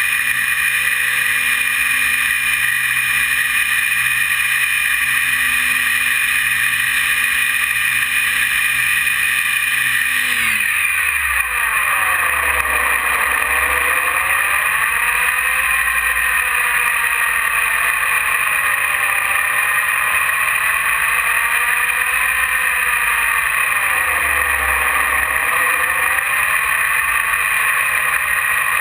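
E-flite 480 1020 kV brushless outrunner motor and propeller of an RC plane, heard close up from on board: a steady whine at high throttle that drops sharply in pitch about ten seconds in, then rises and falls slowly as the throttle is worked, over constant wind rush.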